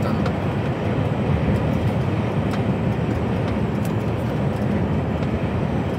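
Cab noise of an HGV container lorry cruising on a motorway: a steady low rumble of engine and road noise heard from inside the cab.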